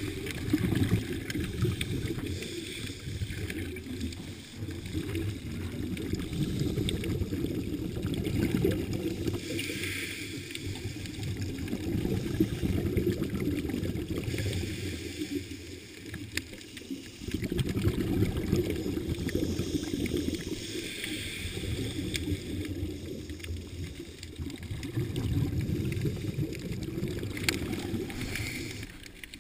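Scuba diver's breathing through the regulator, heard underwater through the camera housing: a muffled low rumble of bubbles that swells and ebbs, with a brief higher hiss every several seconds.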